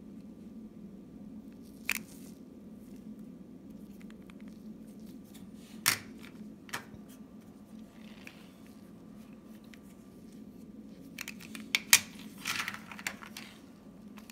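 Hard plastic coin capsules holding silver coins clicking and clacking against one another and the table as they are handled and stacked: a few single sharp clicks, then a quick cluster of clacks near the end, over a steady low hum.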